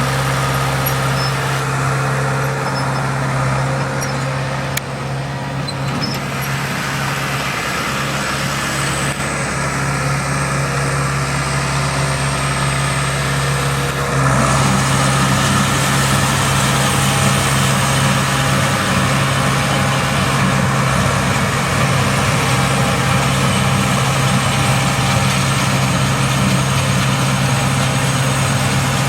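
Tractor engine running steadily under load while pulling a hay baler, with the baler's mechanical clatter and hiss over the engine's drone; it gets somewhat louder about halfway through.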